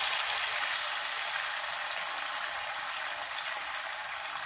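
Ginger-garlic paste sizzling in hot oil in a frying pan: a steady hiss that slowly dies down.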